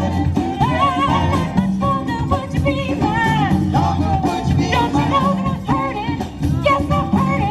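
Music: a song with a singer whose voice glides and wavers over a band playing a steady beat.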